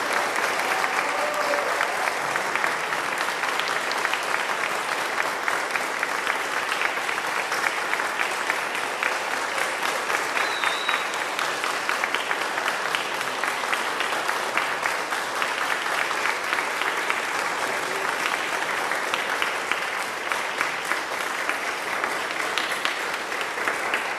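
Audience applauding: a long, steady round of clapping from a seated crowd.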